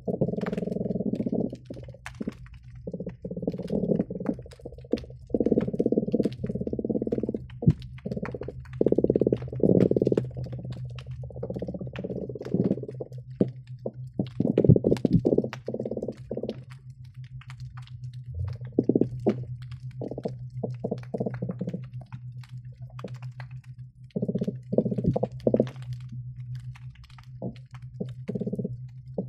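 Croakers calling underwater, heard through a hydrophone: many low grunting drum calls, from short knocks to calls of a second or more, overlapping in busy spells and thinning out for a few seconds past the middle. A steady low hum runs beneath, with scattered faint sharp clicks.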